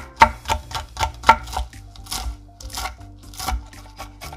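Chef's knife chopping on a wooden cutting board: quick sharp knocks, about four a second, as red chili is cut fine, then sparser, crunchier chops through dried shrimp being minced. Background music plays underneath.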